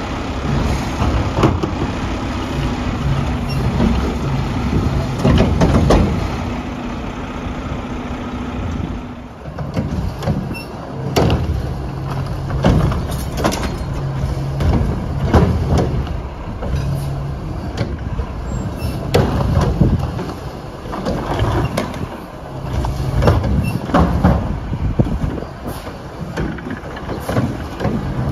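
Mack LR garbage truck's diesel engine running, its note rising and falling in steps as the hydraulics work the Heil Odyssey body and Curotto Can arm. Repeated knocks and bangs come from the carts and the can, and a high hiss drops away about nine seconds in.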